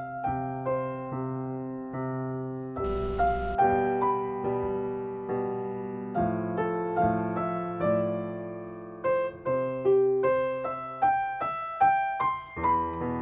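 Solo piano background music: single notes struck about once or twice a second and left to ring and fade, with a brief burst of hiss about three seconds in.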